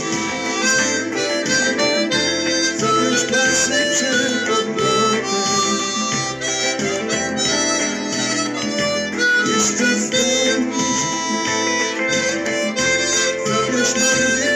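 Tombo Unichromatic harmonica playing a melody of held, changing notes over a backing accompaniment with guitar and a steady low rhythm.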